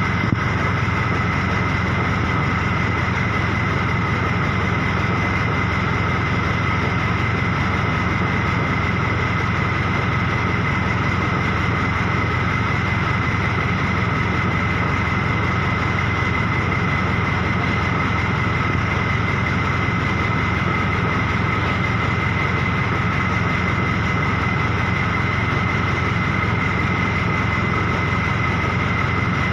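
Engine idling steadily, with two constant high-pitched whines over a low, even running noise.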